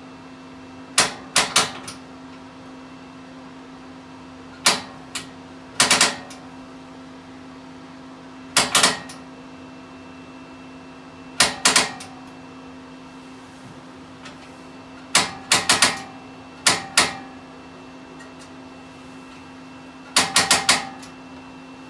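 Piezo sparker on an RV's gas stovetop snapping in quick bursts of two to four clicks every few seconds as the burners are lit, with air still being bled from the propane line; the front burner's sparker may need adjusting. A steady low hum runs underneath.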